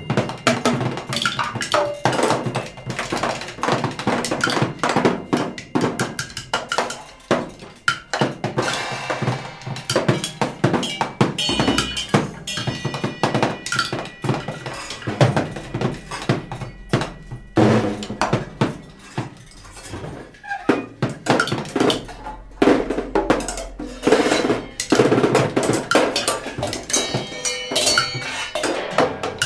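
Free-improvised percussion by a duo of two drummers: dense, irregular strikes and rattles on drums and percussion, with no steady beat. High sustained ringing tones sound out over the strikes around halfway and again near the end.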